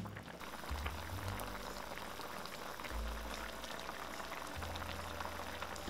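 Soy-sauce braising liquid boiling hard around pork trotters in a pot over high heat, a dense continuous crackle of small popping bubbles as the sauce is being reduced.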